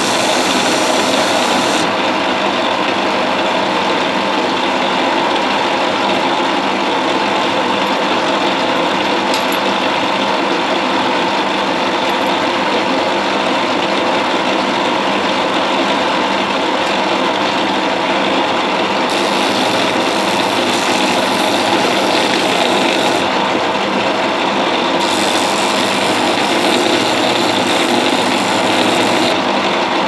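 Bench belt-and-disc sander running steadily while a piece of horn is ground against the sanding disc. The grinding hiss grows harsher and eases off at times as the horn is pressed on and lifted away.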